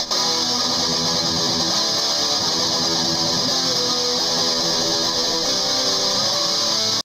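Instrumental background music led by guitar, playing at a steady level and cutting off abruptly at the end.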